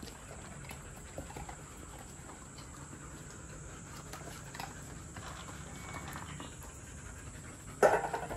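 Black Labrador puppy panting, with a few small clicks. A short, louder burst of sound comes near the end.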